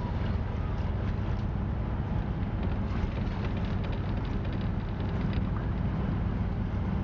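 Motor ship's diesel engine running with a steady low drone, under a constant rush of wind on the microphone and water along the hull.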